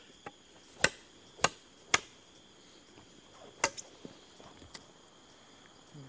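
Parang blade chopping into the top of a wooden stake that rests on a root, flattening it with firm blows. There are four sharp chops, three in quick succession and a fourth after a pause of about a second and a half, with a few lighter taps. A steady high insect drone runs underneath.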